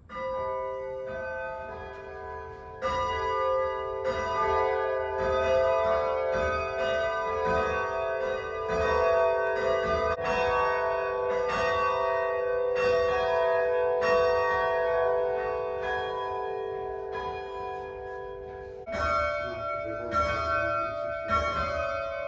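Tower bells hung for change ringing, rung by rope one after another with a new strike about every half second. Each stroke's tone overlaps the next, so the ringing blends into a sustained chord. A louder strike comes about three seconds in, and a different set of notes takes over near the end.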